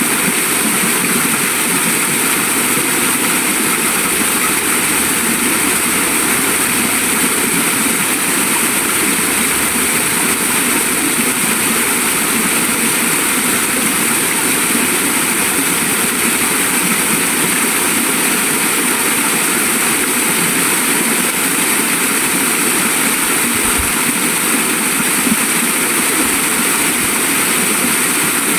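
Waterfall: water falling and splashing in a loud, steady, even rush.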